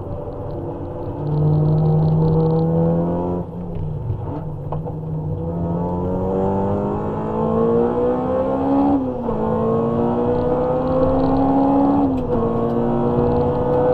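Honda Civic EG6's 1.6-litre VTEC four-cylinder, heard from inside the cabin under hard driving: it holds steady revs through a corner, then climbs in revs and shifts up twice, each upshift a sudden drop in pitch before it pulls up again.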